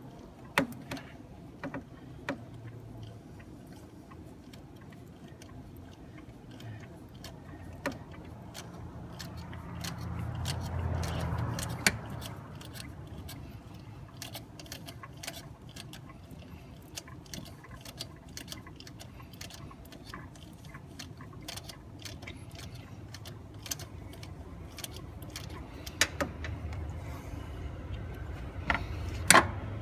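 Hand ratchet clicking in quick, uneven runs while tightening the AC compressor's mounting bolts, with a few sharper metal knocks near the start, about twelve seconds in and near the end.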